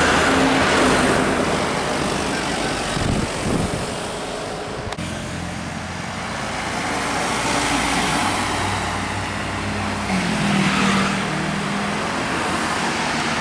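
Road traffic driving past: engines and tyre noise, swelling and fading as vehicles go by.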